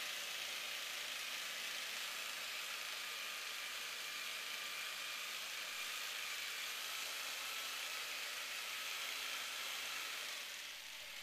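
Steady hiss of noise with a faint high whine, holding level and fading off about ten and a half seconds in.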